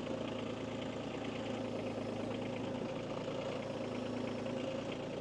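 Kubota B2301 compact tractor's three-cylinder diesel engine running steadily.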